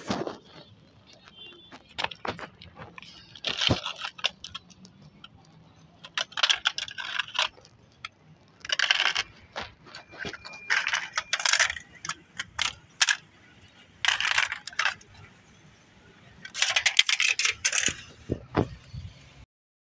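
Flattened aluminium drink cans crinkling and clinking as they are handled, in about six short bursts with scattered clicks between.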